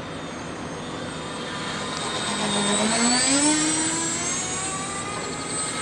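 Electric ducted fans of a radio-controlled A-10 Warthog foam model flying overhead, making a jet-like whine. The pitch dips and then climbs again, and the sound is loudest about three seconds in.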